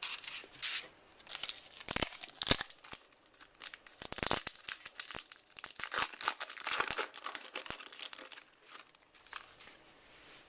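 A baseball card pack's wrapper being torn open and crinkled in the hands: dense crackling with a few sharp knocks, dying down near the end.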